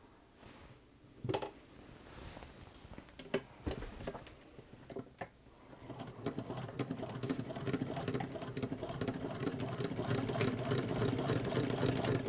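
Hand-cranked Hexagon shuttle sewing machine (built by Standard Sewing Machine Co., Cleveland) sewing: a rapid, even clatter of stitches that starts about halfway through and grows slightly louder. Before it, a few separate knocks as the cloth is set under the foot.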